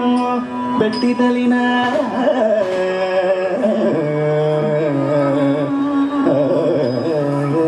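Carnatic classical music: a melody played in long held notes that glide and waver between pitches, over occasional percussion strokes.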